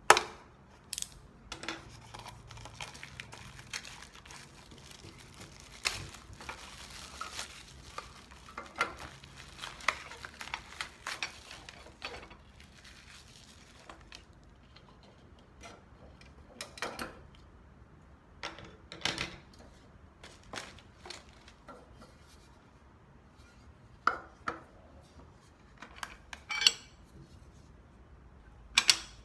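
A small metal springform cake pan being unwrapped and handled on a wooden table: scattered clinks and clatters of the tin pan and its removable base, with the crinkle of plastic wrap being peeled off. The loudest clatter comes right at the start, and a longer stretch of rustling follows a few seconds in.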